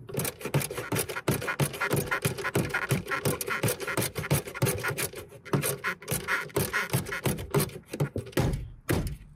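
Rapid, uneven clicking of a ratchet wrench driving a 10 mm bolt into a car dashboard, the strokes running on with short pauses.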